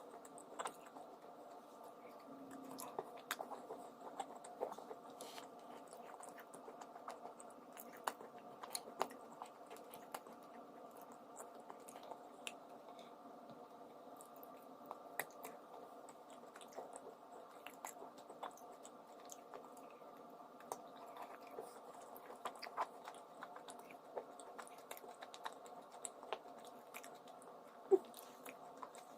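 A person chewing a mouthful of crunchy edible earth, with sharp crunches scattered throughout and one louder crack near the end, over a steady low background hum.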